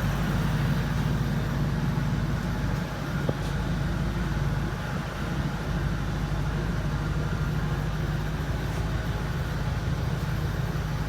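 A steady low mechanical hum, like an engine or motor running, with a single click about three seconds in.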